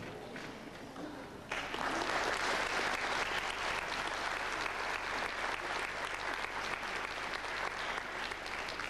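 Audience applause, starting suddenly about a second and a half in and then running as steady clapping.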